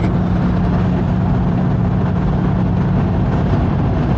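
A car cruising at highway speed, heard from inside the cabin: a steady engine drone over loud road and wind noise.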